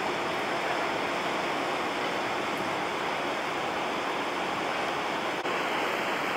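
Steady, even rushing noise with no distinct events; about five seconds in, the highest part of the hiss drops away.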